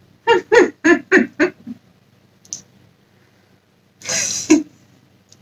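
A woman laughing: a quick run of five or six short 'ha' pulses, then a breathy burst of air about four seconds in.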